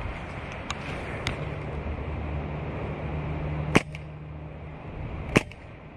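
Two rifle shots about a second and a half apart, each a sharp single crack, over a low steady background rumble.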